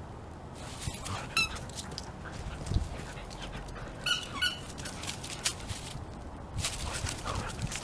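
Siberian husky giving short high-pitched squeaky whines, once about a second and a half in and again around four seconds in, among light scuffs and clicks as she runs about.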